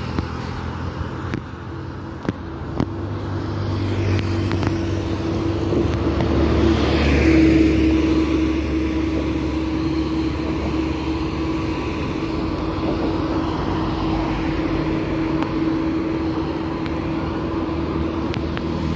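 Road traffic on the adjacent multi-lane road: a steady rush of passing cars with a low hum underneath, swelling about seven seconds in as vehicles go by.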